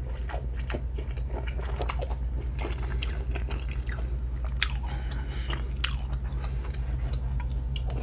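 A person chewing a big mouthful of pinakbet, a pork and vegetable stew, with many short, irregular wet mouth clicks. A steady low hum runs underneath.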